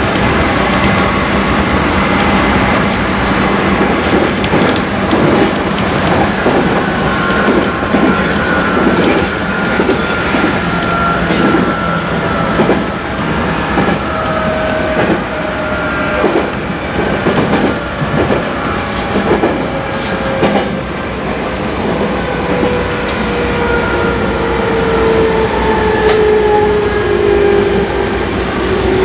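Tokaido Line local electric train running and slowing, heard from inside the car: the wheels clack over rail joints and points, and a tone falls steadily in pitch as the train slows into a station.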